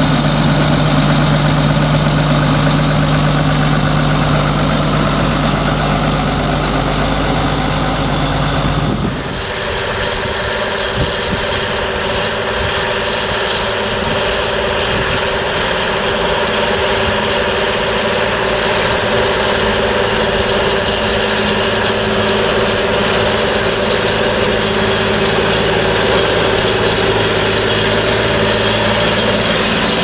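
John Deere tractor diesel engine idling steadily, then after a sudden change about nine seconds in, a John Deere 8320 tractor's engine running under load as it pulls a plough through the field.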